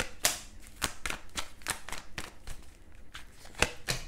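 A tarot deck being shuffled and handled: a run of sharp, irregular card snaps and clicks, the loudest about three and a half seconds in.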